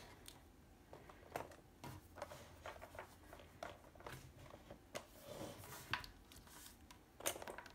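Faint, scattered clicks and rustles of the kit's small tools and packaging being handled.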